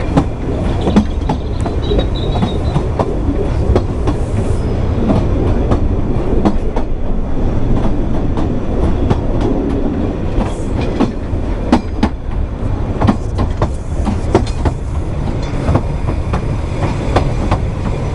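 Narrow-gauge railway carriage running along the track, heard from an open window: a steady rumble of wheels on rails with irregular clicks as the wheels cross rail joints.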